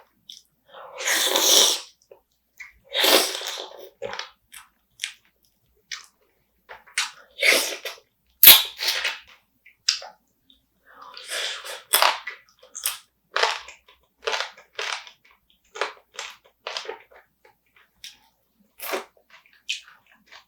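Close-up eating of spicy marinated raw crab: irregular wet chewing and crunching noises in short separate bursts, with a sharp crack about eight and a half seconds in.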